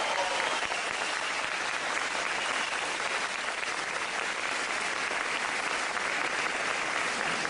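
Audience applauding, a dense, even clapping that holds steady without a break.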